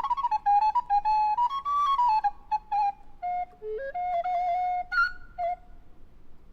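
A recorder played solo: a quick run of notes, then slower, longer held notes that settle lower before the phrase ends.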